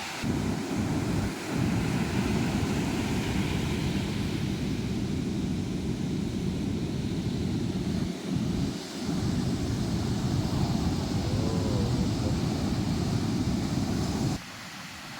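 Strong wind buffeting the microphone in a loud, gusty rumble over the sea, with brief lulls; it cuts off abruptly near the end.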